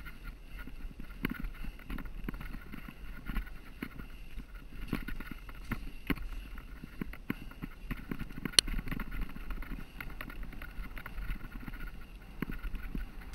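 Mountain bike rolling over rough, stony singletrack: tyre noise on gravel and rock with the bike rattling and knocking over the bumps, and one sharp high click about eight and a half seconds in.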